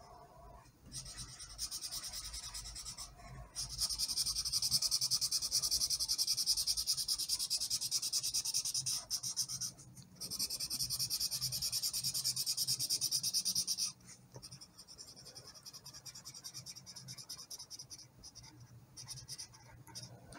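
Felt-tip marker scribbling rapidly back and forth on paper to colour in an area. The strokes are loud for most of the first two thirds, with a brief pause near the middle, then turn fainter toward the end.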